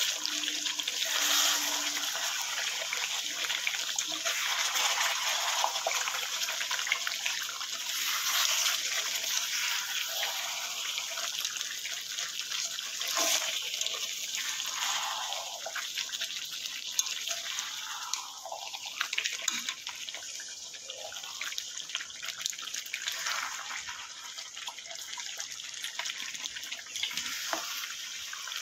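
Water running from a tap into a sink, splashing and trickling unevenly; the flow gets quieter after about 18 seconds.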